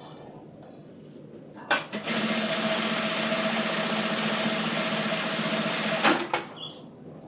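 Sewing machine running at a steady speed for about four seconds, starting about two seconds in and stopping with a couple of clicks.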